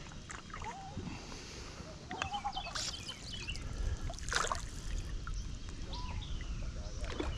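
River water trickling and lapping close by, with several short bird chirps and two brief noisy bursts about three and four and a half seconds in.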